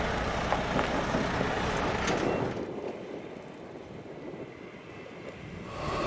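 Concrete mixer truck running, a steady noisy rumble that drops in level about two and a half seconds in and rises again near the end.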